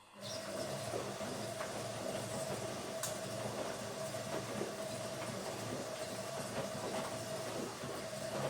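Automatic washing machine starting up suddenly and then running steadily: a continuous hum and rush with irregular light clattering.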